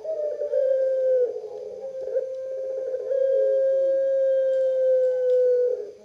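Caged collared dove cooing: a shorter coo at the start, then a long drawn-out coo held on one steady pitch for nearly three seconds from about three seconds in.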